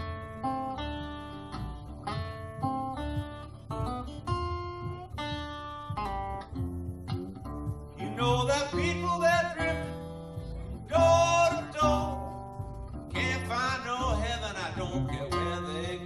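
Gretsch Jim Dandy parlor acoustic guitar picking a slow country-blues figure, note by note. About halfway through, a man's voice comes in singing over it in long, wavering phrases.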